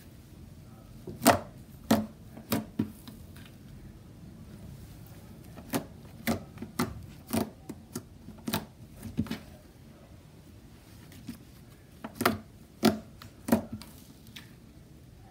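Grey slime being pressed and folded by hand, giving sharp pops and clicks as trapped air bursts out, in three loose runs of a few clicks each.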